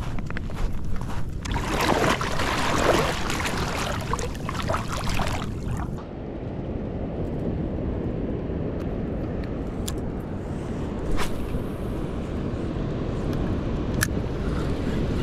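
Sea water washing and splashing for about six seconds, then a steady low rumble of surf and wind, with a few single sharp clicks.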